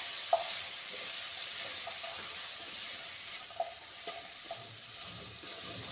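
Chopped capsicum and potato pieces sizzling in oil and masala in a non-stick kadai while a wooden spatula stirs them, with a few light scrapes and taps on the pan. The sizzle slowly dies down.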